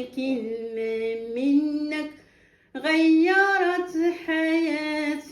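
A woman singing a slow melody without accompaniment, in long held notes that slide between pitches. She breaks off for about half a second a little past two seconds in.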